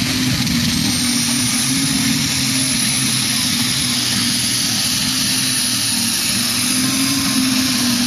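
Pulling tractor's engine running flat out under full load as it drags the weight sled, a loud, steady run with a faint high thin whine climbing slightly over it.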